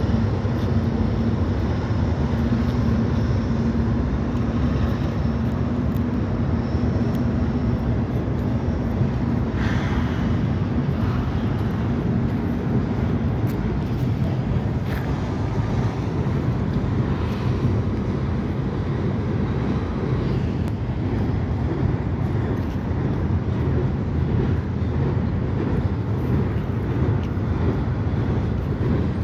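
CSX freight train cars rolling across a steel trestle bridge: a steady low rumble of wheels on rail and the ringing steel structure, with a few brief clatters along the way.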